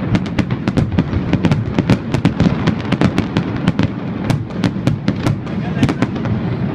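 Fireworks display: a rapid, unbroken run of sharp bangs, several a second, over a steady low rumble.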